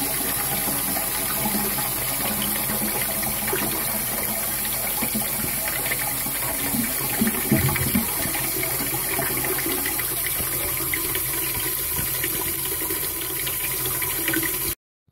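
Toilet cistern refilling after a flush: water rushing steadily through the ball-cock float valve into the tank, with a few brief louder bumps about halfway through, cutting off suddenly near the end. The refill shows the newly fitted siphon has emptied the cistern.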